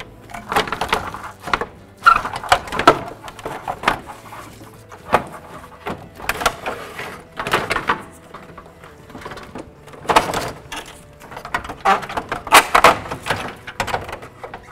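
Irregular knocks, clunks and scrapes as the electric cooling fan shroud and radiator are wrestled up and out of the engine bay, catching on the parts around them.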